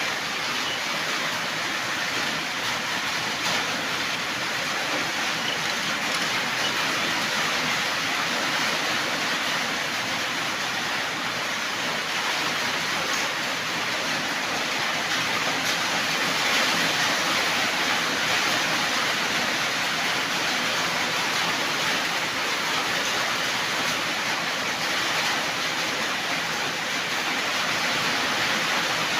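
Many marbles rolling and clattering down a marble run, making a dense, steady rattle of tiny clicks.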